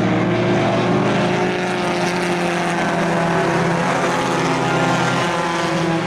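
Several race cars' engines running at speed together on a paved oval: a steady, loud sound made of a few overlapping engine notes that slowly shift in pitch as the cars go around.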